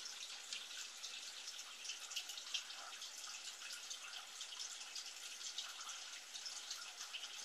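Steady trickle of running water with a fine, crackly dripping texture.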